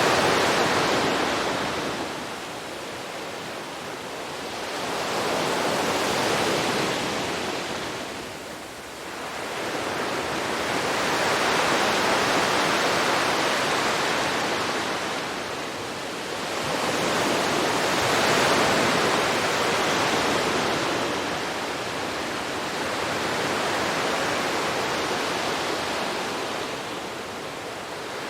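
Ocean waves washing onto a shore, a steady hiss of surf that swells and falls back about every five to six seconds.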